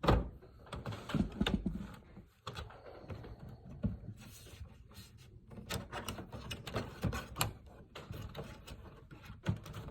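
Plastic back cover of an all-in-one PC being worked off its snap-in latches by hand. A loud knock comes at the start, more knocks follow about a second in, then scattered short plastic clicks and taps continue throughout.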